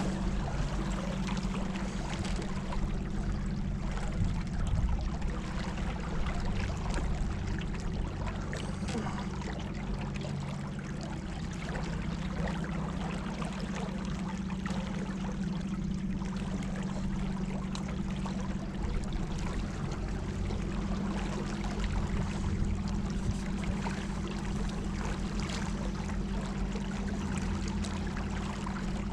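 Water sloshing and gurgling along a small boat's hull, over the steady hum of the boat's motor.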